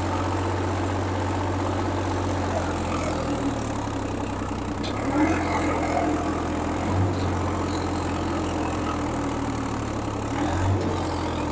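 Swaraj 855 FE tractor's three-cylinder diesel engine running steadily under load while pulling a 13-tine cultivator through soil. The engine drones evenly, swelling slightly about five seconds in and again near the end.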